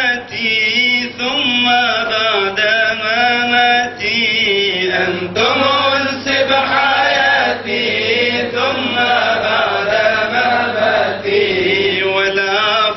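Man chanting a Sufi kaside (devotional ode) unaccompanied, the single voice wavering and ornamented on long held lines, with brief breaks for breath.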